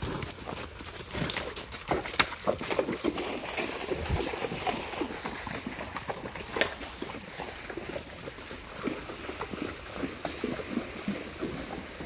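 Horses walking on a gravelly creek bed: irregular hoof clops and crunches on the stones as they pass and wade into the shallow water.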